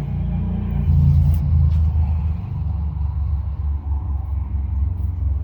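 A steady low rumble, loudest about a second in.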